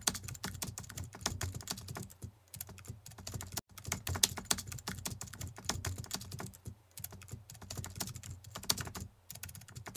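Computer keyboard typing sound effect: a fast, uneven run of key clicks with a few brief pauses, matching the caption being typed out letter by letter.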